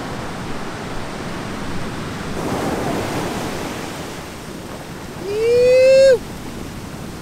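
Ocean surf washing up on the beach, swelling about two seconds in. About five seconds in, a loud yell of about a second rises in pitch and cuts off sharply.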